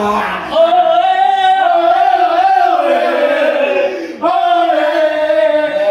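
A man's voice singing a loud chant in long drawn-out notes, with a short break about four seconds in.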